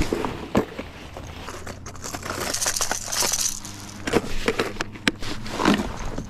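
Plastic tackle box being handled and a lure taken out: scattered sharp clicks and knocks of plastic and hooks with a rustling hiss in the middle, over a faint low steady hum.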